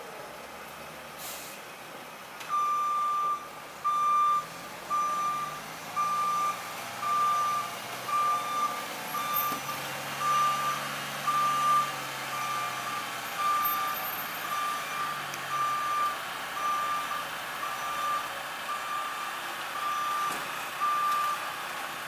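Back-up alarm on a Mack Granite concrete mixer truck beeping about once a second as the truck reverses, over its diesel engine running. The beeping starts a couple of seconds in and stops shortly before the end.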